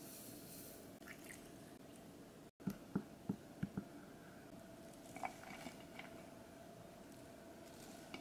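Sesame seeds pattering into a glass bowl as they are tipped from a wooden spoon. Then a spoon stirs thick, wet gochujang sauce, with a quick run of about six squelching knocks and a few fainter clicks later.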